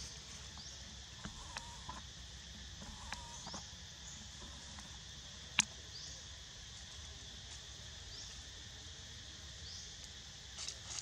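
Steady insect chorus with short rising chirps recurring every second or so. A few faint ticks come early on, and a single sharp click about five and a half seconds in is the loudest sound.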